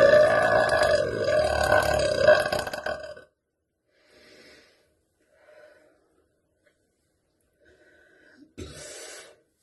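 A young woman's long, loud burp that stops abruptly after about three seconds, followed by a few quiet breaths.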